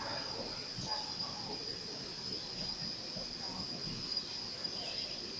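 Indoor pool hall ambience: a steady high-pitched whine, like an insect's drone, over faint, indistinct voices.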